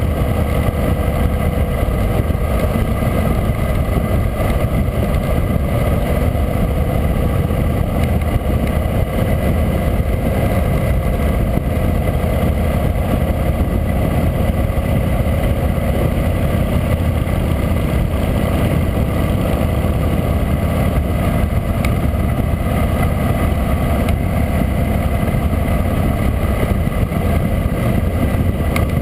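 Harley-Davidson V-twin motorcycle engine running steadily at cruising speed, mixed with steady wind rush over the bike-mounted camera's microphone.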